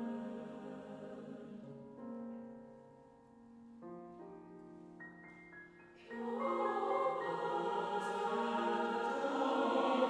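Mixed choir singing long held chords: soft and thin for a few seconds, then the full choir comes in louder about six seconds in.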